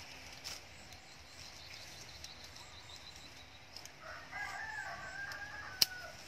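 A rooster crows once about four seconds in, a call of about two seconds that drops slightly in pitch at the end. Just before the crow ends, a single sharp snip of scissors cutting a leafy stem is the loudest sound.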